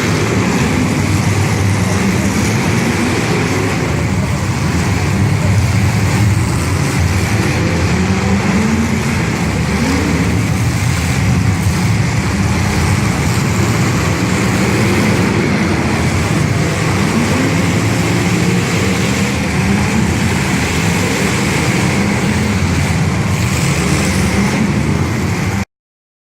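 Demolition derby cars' engines running and revving over a loud, continuous din, with pitch swelling and falling again and again. The sound cuts off suddenly near the end.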